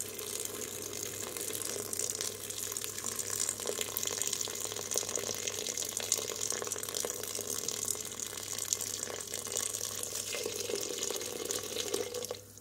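A steady stream of just-boiled water pouring into a stainless steel pot of beans in tomato sauce, splashing into the rising liquid. The pour stops suddenly near the end.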